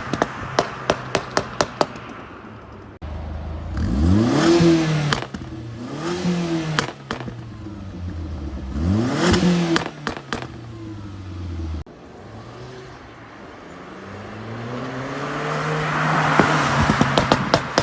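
Audi TT 1.8T's turbocharged four-cylinder revved up and let fall several times, with rapid trains of exhaust crackles and pops as the revs drop off the throttle near the start and near the end. These are overrun fuel-cut pops from a pop-and-bang tune set to low.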